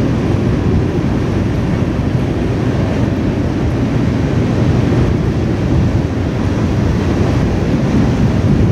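Freight cars rolling over a trestle make a steady low rumble of wheels on rail, mixed with wind on the microphone.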